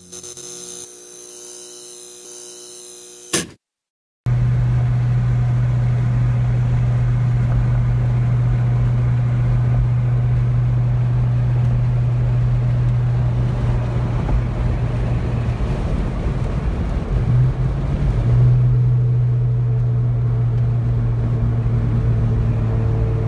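The tail of a short intro music sting, a moment of silence, then the steady low drone of a 2001 Ford Mustang Bullitt's 4.6-litre V8 heard from inside the cabin while cruising on the road. Its note wavers briefly about 17 seconds in and then carries on steadily.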